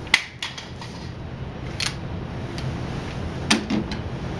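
Several sharp clicks and knocks, the loudest just after the start and two close together near the end, over a steady low hum.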